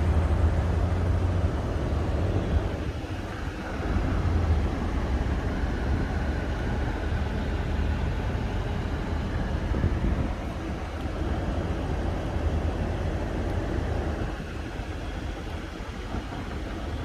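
BMW M850i Gran Coupe's twin-turbo V8 running steadily, with a deep low sound, dipping slightly in loudness about three seconds in and again near the end.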